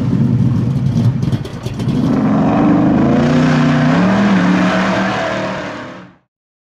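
Car engine running and revving, its pitch climbing twice, then fading out about six seconds in.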